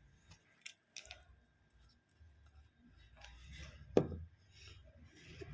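Small bottles and a glass being handled on a table: faint clicks and light rustling, with one sharper knock about four seconds in.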